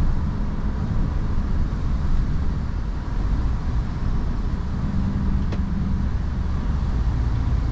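Steady low drone of a heavy goods lorry's engine and tyres on a wet road, heard inside the cab while driving, with a single faint click about five and a half seconds in.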